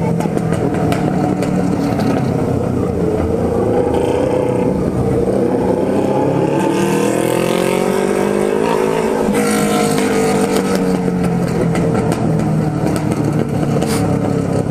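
Yamaha XJ6's inline-four engine running under the rider while cruising, its pitch climbing steadily from about five seconds in as the bike accelerates, peaking around nine seconds, then falling away as the throttle eases off.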